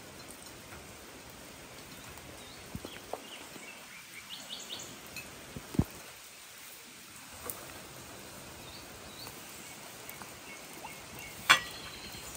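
Steady hiss of light rain with a few short bird chirps, and several sharp clicks and knocks, the loudest near the end.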